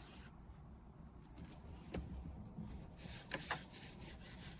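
Faint soft brushing of a fine detail brush over a car's display screen, with a couple of light taps about two and three and a half seconds in.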